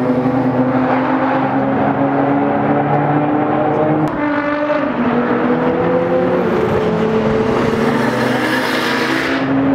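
Nissan Skyline race cars running at speed down a track straight, their engines holding a steady note. Near the end one car passes close with a rushing surge.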